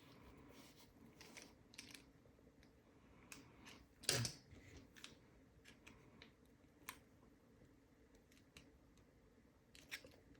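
Faint scattered clicks and light scraping of a screwdriver turning small, worn screws in a padlock body, with one louder knock about four seconds in.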